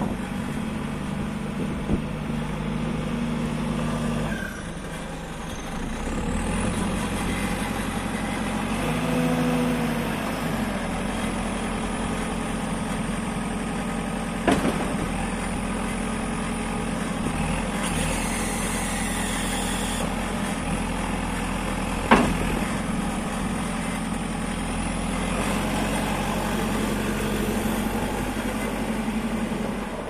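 2005 JCB 3CX backhoe loader's diesel engine running, its speed rising and falling as the machine moves and works its loader arm. Two sharp knocks come partway through, the second the louder.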